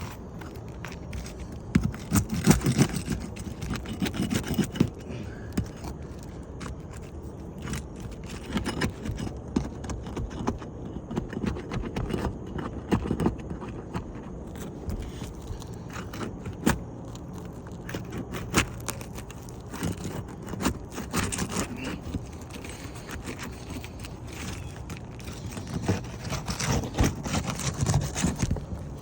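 Hand tools scraping, prying and knocking at asphalt roof shingles, in irregular bouts with sharp clicks. The shingles are stuck together, the mat bonded to the tab below, so they will not come apart cleanly.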